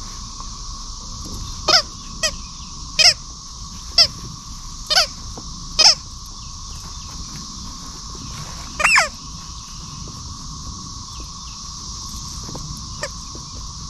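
Rubber squeaky toy squeaking as a dog bites and chews it: six short squeaks about a second apart, then a longer drawn-out squeak after a pause.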